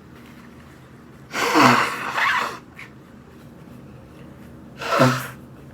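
A woman with COVID-19 coughing: a double cough about a second and a half in, then one more single cough near the end.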